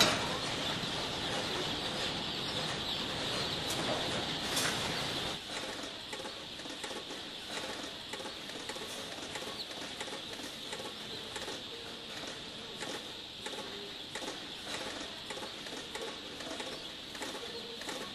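A mass of day-old chicks peeping in a dense, continuous chorus, with the low hum of hatchery conveyor machinery under it for the first five seconds or so. After that the machine sound drops away and the peeping goes on with scattered small clicks.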